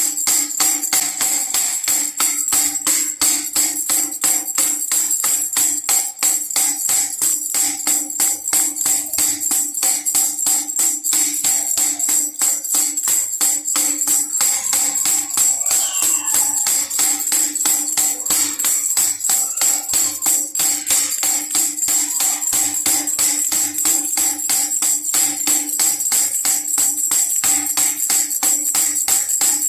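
Baby rattle shaken in a fast, steady rhythm, jingling and bright, with a steady low tone underneath.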